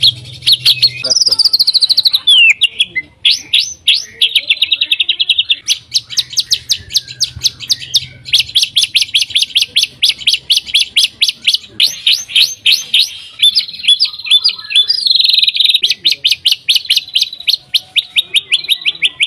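White-rumped shama singing hard: long runs of rapid, sharp repeated notes, broken by whistles that slide down in pitch.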